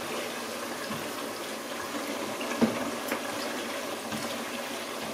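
Tomato stew frying and bubbling in a pot on the stove: a steady hiss, with a light knock about two and a half seconds in.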